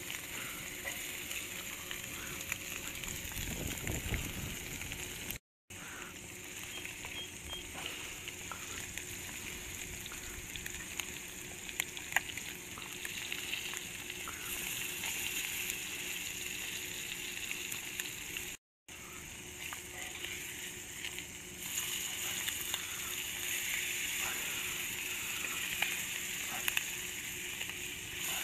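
Fish fillets frying in oil in a cast-iron skillet over a wood fire: a steady sizzle with many small crackles and pops, the oil at a boil.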